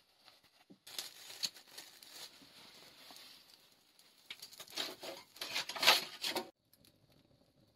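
Dry material rustling and crinkling as it is handled, in irregular bursts, loudest from about four and a half to six and a half seconds in, then dropping away to a faint background.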